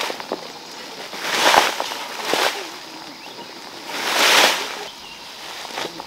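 Water splashing in three separate surges, each about half a second long, with a few faint knocks between them.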